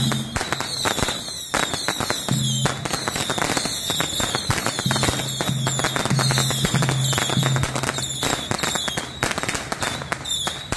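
A string of firecrackers going off in a fast, dense crackle of pops.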